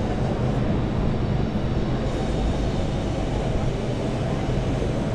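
Steady low rumble of a busy city square, engine-like and even throughout.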